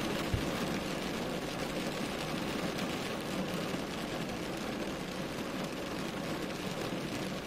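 Rain falling on a car's roof and windows, heard as a steady hiss inside the cabin, with one brief low thump near the start.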